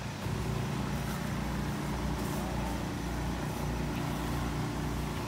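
A motor vehicle's engine running steadily close by, a low even hum.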